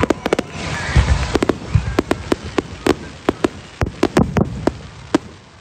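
Aerial fireworks bursting overhead: a few deep booms and a quick, irregular run of sharp crackling pops, dying away near the end.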